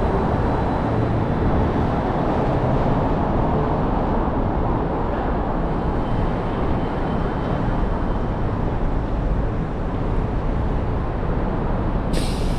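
Busy city-street traffic: a steady rumble of passing vehicles, with a short sharp hiss near the end.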